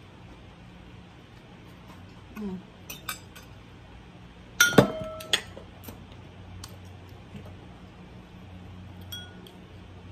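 A metal fork clinking against a ceramic soup bowl: a few light taps, then one loud ringing clink about halfway through, and a couple of faint clinks near the end.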